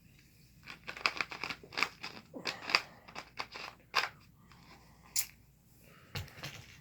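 Close-miked eating sounds: irregular wet clicks and crackles of chewing noodles, running for about three and a half seconds, then one more sharp click a little later.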